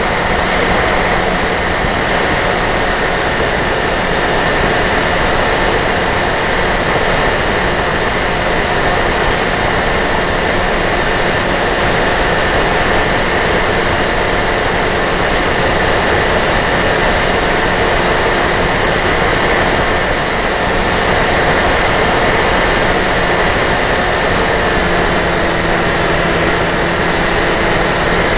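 Electric motor and propeller of a Dynam Hawk Sky RC glider in cruising flight, picked up by its onboard camera: a steady whine over the rush of wind, its pitch shifting slightly near the end.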